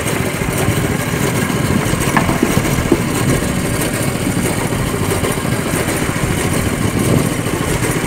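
Fishing boat's engine running steadily, with sea water washing against the hull.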